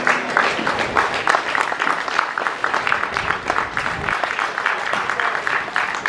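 Spectators clapping steadily, applause for the athletes crossing the finish line.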